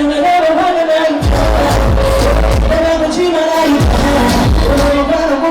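Loud pop music: a singer's voice carrying the melody over a heavy beat, with deep bass notes that slide down in pitch and crisp cymbal ticks.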